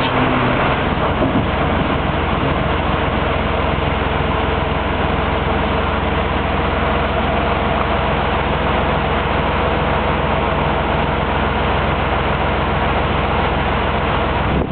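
O&K RH4 excavator's diesel engine running steadily.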